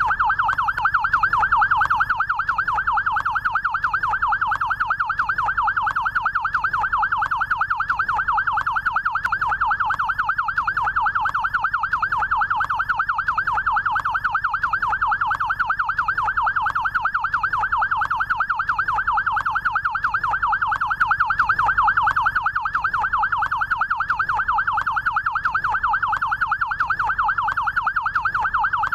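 Electronic siren of a SAMU rescue motorcycle sounding its yelp tone. The pitch sweeps quickly up and down, over and over without a break.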